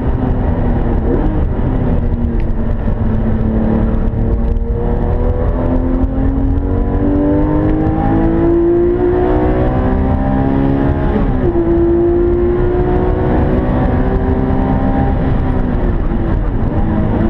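Porsche 911 GT3 RS 4.0's naturally aspirated 4.0-litre flat-six heard from inside the cabin at speed on track. The engine note climbs steadily in pitch under acceleration, breaks at a gear change about eleven seconds in, then holds at a steadier pitch.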